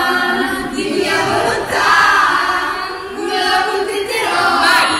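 A group of young voices singing together, a choral song in phrases of held notes.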